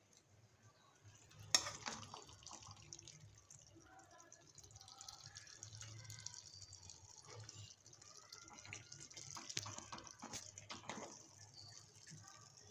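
A ladle scooping and stirring through a pot of thick, oily palak chicken curry, making faint wet squelching and dripping sounds, with one sharp knock about a second and a half in.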